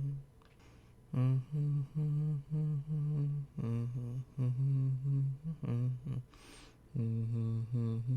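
A man humming a slow, soothing lullaby-like tune in short held notes, with a pause about a second in and a short breathy hiss near the end.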